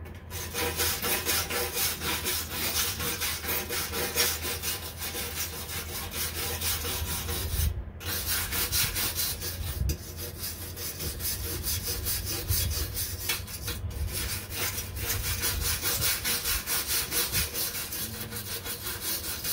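Hand wire brush scrubbing rust off a steel lawn mower deck in quick back-and-forth strokes, with a few short pauses.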